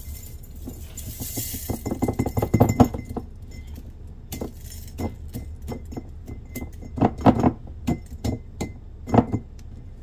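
Dry minced onion pieces sliding off a rolled mesh dehydrator sheet and rattling into a glass mason jar. A rush of pieces pours in about a second in, followed by scattered clicks and clinks as the sheet is shaken against the jar. The dry rattle shows the onions are fully dry.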